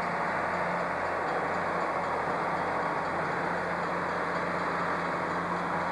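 Dinner-train passenger cars rolling slowly past on the rails, a steady noise of wheels on track with a faint hum under it.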